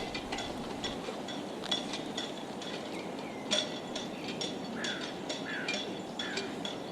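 Irregular light metallic clinks, several a second, each with a brief ring, over a steady low wash of harbour noise. A few short falling squeaks come in the second half.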